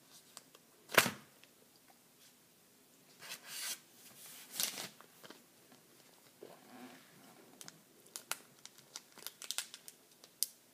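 A thin sheet of paper being torn and crinkled by hand. There is one sharp rip about a second in, then longer tearing and rustling a few seconds in, and a run of small crackles and clicks near the end.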